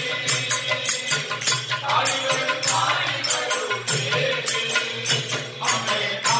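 A group of men chanting a devotional mantra in unison, with small hand cymbals struck in a steady beat of about three strikes a second.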